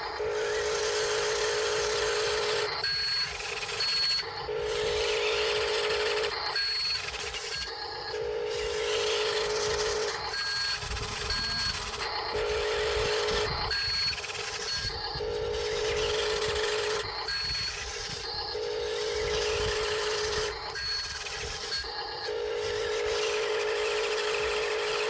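Electric motors of a radio-controlled toy excavator whirring in repeated runs of about two seconds with short breaks between, with short high electronic beeps now and then.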